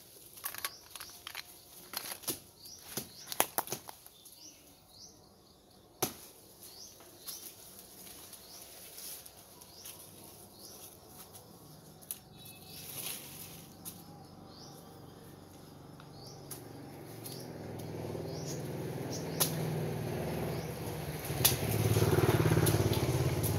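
Dry leaves and twigs crackling and snapping in quick, scattered clicks during the first few seconds, with faint bird chirps. A low motor rumble then builds gradually and is loudest just before the end.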